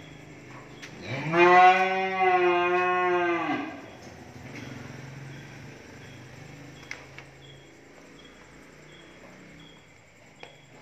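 A cow mooing once: a single long call of about two and a half seconds that rises in pitch as it starts, holds steady, and falls away at the end.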